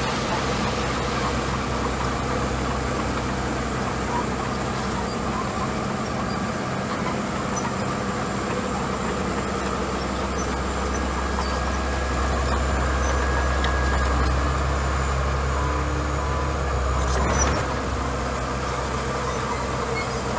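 Small crawler bulldozer's diesel engine running steadily while it pushes gravel. Its low rumble swells for several seconds past the middle, and a brief sharp noise comes about three seconds before the end.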